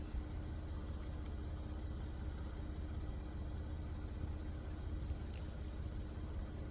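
Steady drone of a vehicle moving along a road, heard from inside the cab: a low engine and road rumble with a constant hum.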